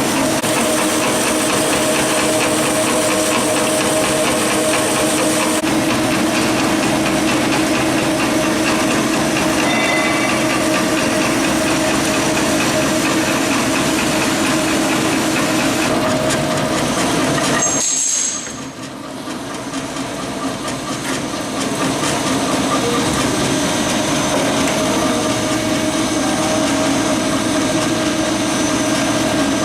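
Automatic metal-cutting band saw running and cutting steel stock with a steady mechanical hum. About two-thirds of the way through it briefly squeals and the sound drops sharply, then builds back up over a few seconds.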